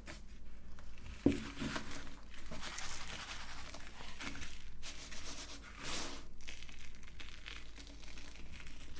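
Oreo cookies being crushed in a meat grinder: an irregular crunching and crackling that swells and fades, with one sharp knock a little over a second in.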